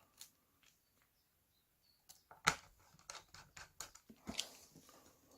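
Light clicks and ticks of small screws and a screwdriver being handled while the last screws of a laptop's bottom cover are set in place. There is one faint click near the start, then a scattered run of them from about two seconds in, the sharpest at about two and a half seconds.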